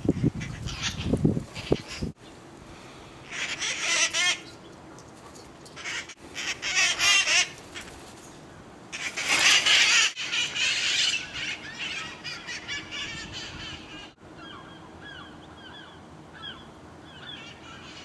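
A flock of red-masked parakeets (the wild parrots of Telegraph Hill) screeching in three loud bursts of harsh calls. Near the end their calls turn to short, fainter chirps as the flock flies off.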